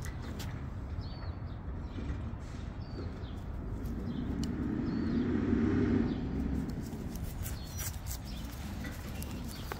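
Low rumble of a passing vehicle that swells about four seconds in and fades by about seven seconds, over steady outdoor background noise. A few short bird chirps and light clicks come in the first few seconds.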